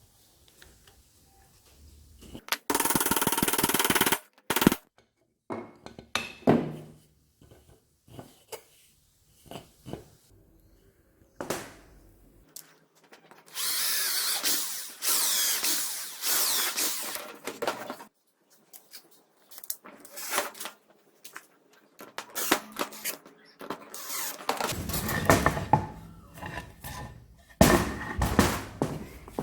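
Electric hand drill running in several bursts: a short one about three seconds in, a longer run of about four seconds near the middle and more near the end, with clicks and knocks of handling in between.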